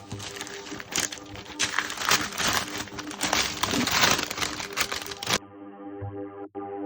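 Rapid crackling and clicking of packaging being handled and pulled open on a large cardboard parcel. About five seconds in it cuts off abruptly and background music takes over.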